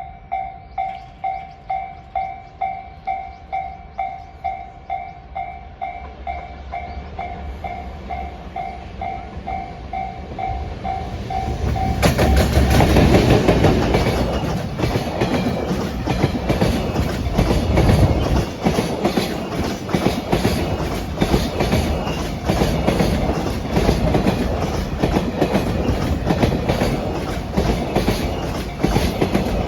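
A Japanese level-crossing warning bell rings in a steady electronic ding-ding, about twice a second. About twelve seconds in, a JR Freight EF210-300 electric locomotive hauling Koki container wagons arrives and passes close by. The loud rush and clickety-clack of its wheels over the rail joints drowns out the bell.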